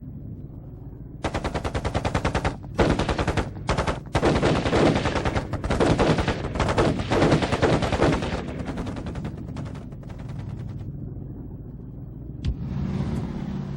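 Machine-gun fire: several long strings of rapid shots with short breaks between them, trailing off after about eight seconds.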